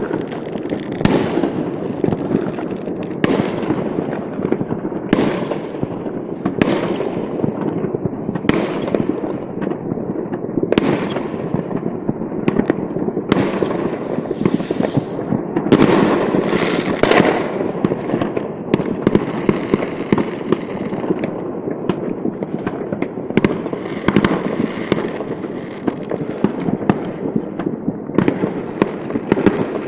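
New Year fireworks: a dense, continuous crackle and popping of many rockets and firecrackers, with sharp bangs about every second or two.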